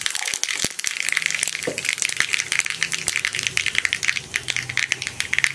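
Mustard seeds spluttering in hot coconut oil in a small pan, with fenugreek seeds just added: a dense, fast run of pops and crackles over a steady sizzle.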